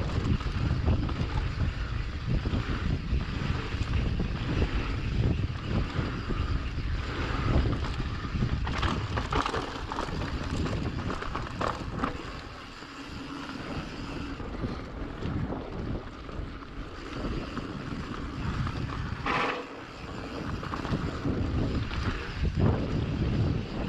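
Wind buffeting a GoPro's microphone during a mountain-bike ride, a steady low rumble with the rattle and clatter of the bike over the trail, easing briefly twice.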